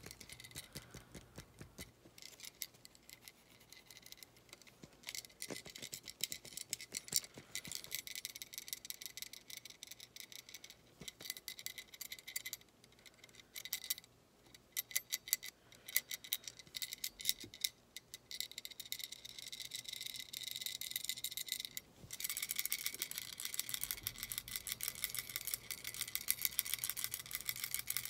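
Fingers tapping and scratching close to the microphone as an ASMR trigger: a dense run of crisp, rapid ticks with a few short pauses, louder in the last quarter.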